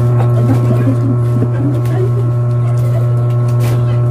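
A loud, steady low hum with several fainter steady tones above it, and a few short clicks.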